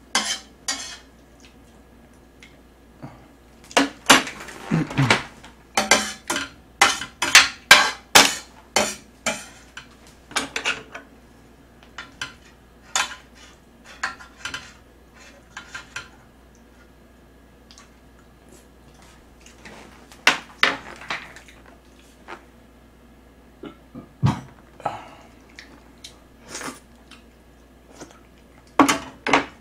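Metal tongs and a wooden spoon clinking and scraping against a large metal tray as leftover black-bean noodles are gathered up. A quick run of clinks comes a few seconds in, followed by scattered ones and a short cluster near the end.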